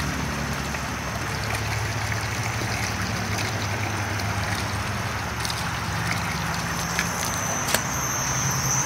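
Water running from a garden hose into a metal dog water bowl, a steady trickling splash, with a low steady hum underneath and a couple of small clicks near the end.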